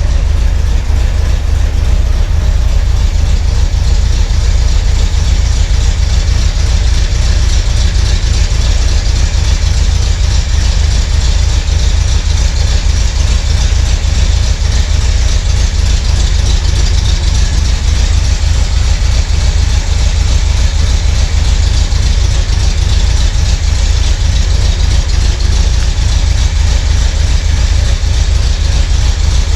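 1971 Corvette's V8 engine idling steadily while it warms up.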